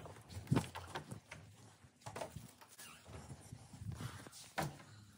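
Irregular knocks and rustling from a handheld phone being gripped and carried, with a sharper knock about half a second in and another near the end.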